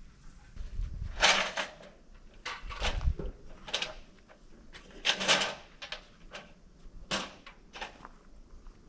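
A string of clunks, knocks and short scrapes, about eight in all, some with a dull thump, as the aluminum pergola frame is shifted into position.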